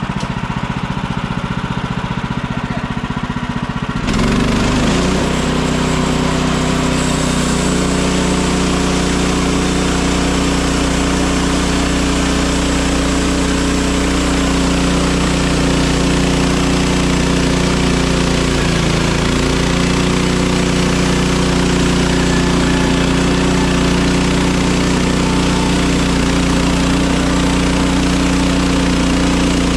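Portable sawmill's engine running. About four seconds in it speeds up, and a steady hiss joins it that runs on evenly.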